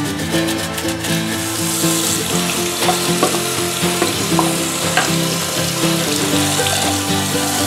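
Background music with steady notes, and from about a second in, a tap running into a sink as a painted plastic toy locomotive shell is rinsed under it, with a few light knocks.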